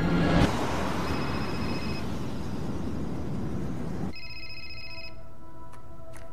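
A telephone ringing twice, each ring about a second long and about three seconds apart. The first ring sounds over a steady hiss of street noise; the second sounds in a quiet room after the hiss cuts off.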